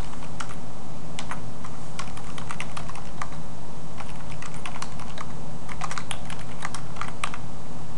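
Typing on a computer keyboard: quick, irregular runs of keystrokes, over a steady low hum.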